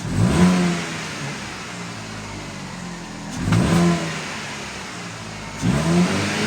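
Chevrolet Cobalt's four-cylinder petrol engine, running on gas, revved up and let fall back three times, with the sound coming through its repaired catalytic converter and exhaust.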